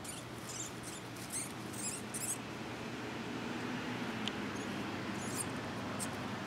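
A mouse squeaking in short high-pitched bursts, a quick run of them in the first couple of seconds and a few more near the end, over a faint steady low hum.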